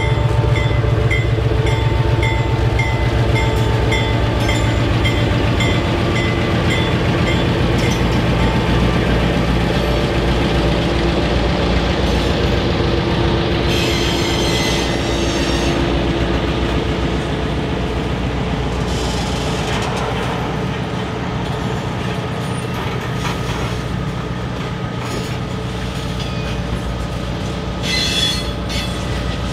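Two EMD GP16 diesel locomotives pass close by at low speed with their engines running in a low, steady drone. Freight cars then roll over the crossing with a few brief wheel squeals, about midway and near the end.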